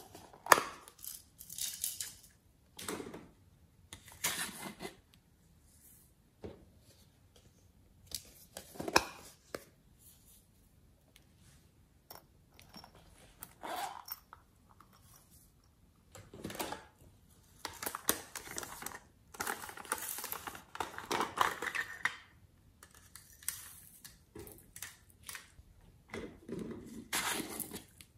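Irregular short bursts of rustling, clicking and pouring as small plastic toy containers are handled and opened and dry add-ins such as foam flakes and glitter sprinkles are tipped out over slime. The bursts come thickest about two-thirds of the way through.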